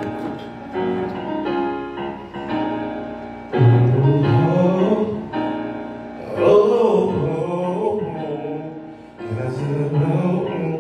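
Singing over piano accompaniment: piano chords play steadily, and a voice comes in with sung phrases about three and a half seconds in, then twice more.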